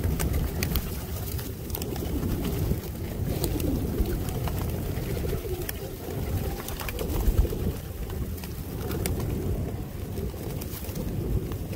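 Flock of feral rock pigeons cooing continuously while feeding, with many scattered sharp clicks of beaks pecking seed off the ground.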